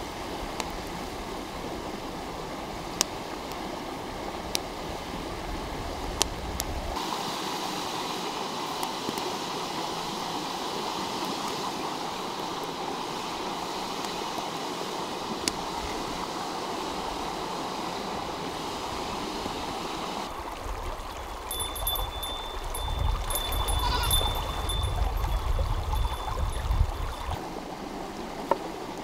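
A stream running steadily, with a few sharp clicks now and then. For the last several seconds a low rumble and a thin, high, steady tone join it.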